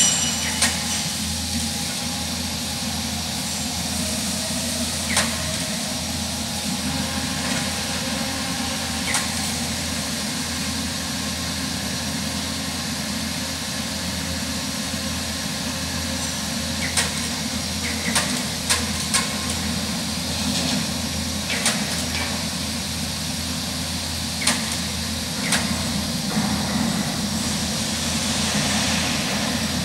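Steady low hum of workshop machinery with an even hiss, broken now and then by short sharp metallic clinks and knocks, several close together a little past the middle.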